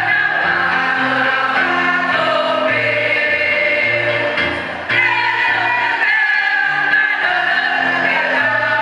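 Choir singing, sustained chords over a bass line that steps from note to note. The sound dips briefly a little past halfway, then comes straight back in.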